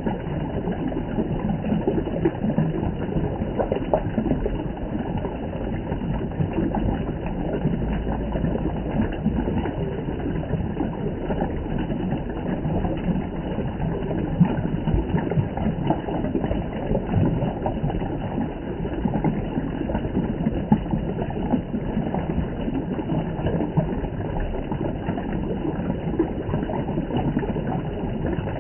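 Water from a mountain spring flowing and splashing steadily, with a dense, even rush.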